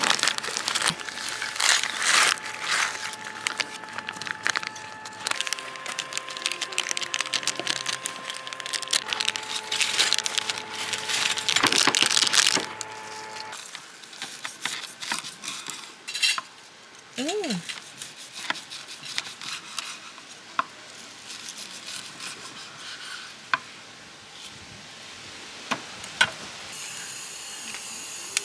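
Camp cooking sounds: utensils and dishes clinking and clattering, busiest in the first half, then lighter handling. A steady hiss starts near the end.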